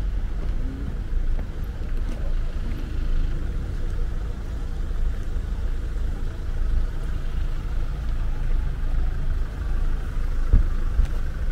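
Steady low outdoor rumble with a faint hiss above it, and one brief thump near the end.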